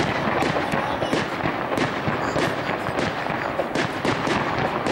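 Aerial fireworks going off overhead: a dense run of sharp bangs and crackles in quick, irregular succession, several a second.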